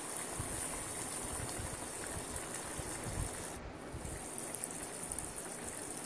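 Tomato and cashew gravy simmering in a stainless steel pot on a gas stove: a steady bubbling hiss.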